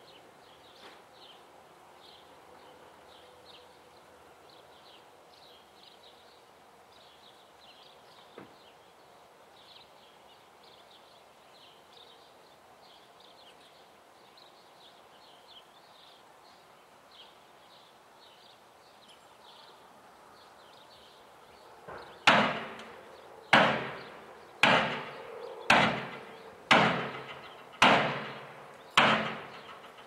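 Seven loud bangs about a second apart, each a sharp knock with a short ringing tail, coming after a long stretch of faint outdoor background with high, faint chirping.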